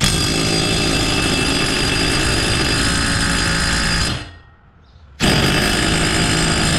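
Old DeWalt 3/8-inch impact wrench hammering on a mower blade bolt in two long runs, stopping for about a second after four seconds, without breaking the bolt loose.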